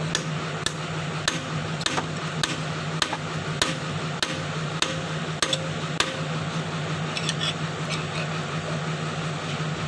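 Hammer striking steel, about one blow every 0.6 s for roughly ten strikes, then slowing to a few lighter taps. A diesel excavator engine idles steadily underneath.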